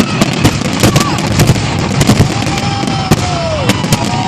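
Fireworks going off in rapid succession: many sharp bangs and crackles, with a few drawn-out whistles that glide slightly down in pitch.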